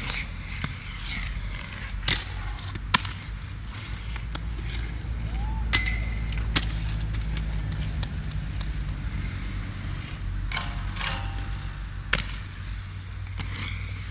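Inline skate wheels rolling on hard pavement, a steady low rumble, broken by several sharp clacks about two, three, six and twelve seconds in.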